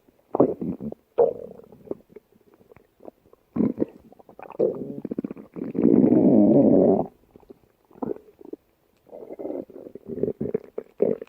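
A stomach growling in a string of irregular rumbles. The longest and loudest is a steady growl of about a second and a half, a little past the middle.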